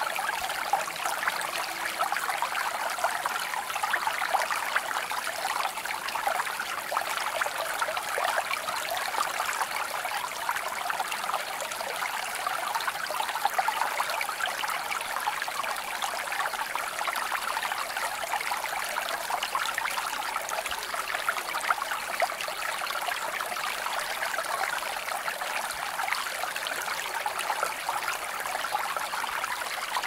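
Creek water flowing over stones, a steady babbling and trickling that never lets up.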